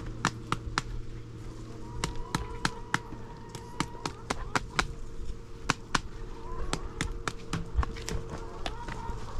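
A rapid, irregular series of sharp knocks or taps, about four a second, over a steady low hum.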